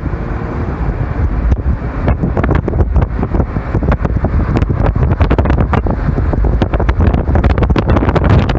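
Car driving along a road, its steady low road and engine rumble overlaid by wind buffeting the microphone in rapid, irregular gusts.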